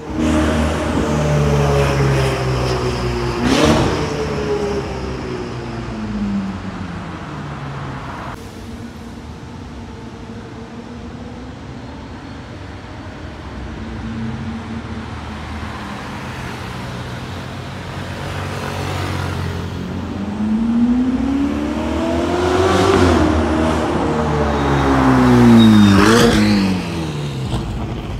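Ferrari 488 Spider's twin-turbo V8 through an aftermarket IPE exhaust, driving past on a city street. Its engine note falls away at first and drops to a lower traffic hum in the middle, then rises again as the car accelerates, loudest shortly before the end.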